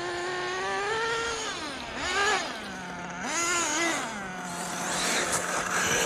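Small nitro RC car engines revving up and dropping back over and over as the cars race, one held at a steady lower pitch in the second half, with a rush of noise near the end. The owner feels the HoBao Hyper VS2 nitro engine runs a bit rich on the low-speed needle.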